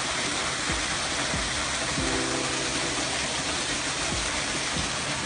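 Steady rush of a waterfall, with soft background music chords coming in around two seconds in.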